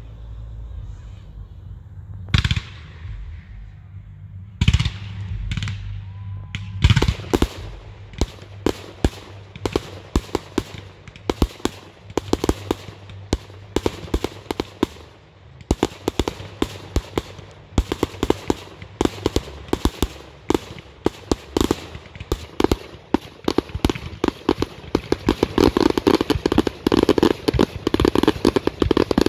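Aerial firework display: a few single shell bursts spaced a couple of seconds apart, then rapid volleys of sharp bangs that grow denser and turn into a dense crackling barrage near the end.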